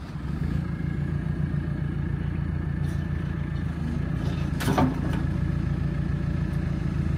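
Diesel engine of the machine driving a shear grab running steadily as the grab's hydraulics are worked, with one short sharp clank about four and a half seconds in.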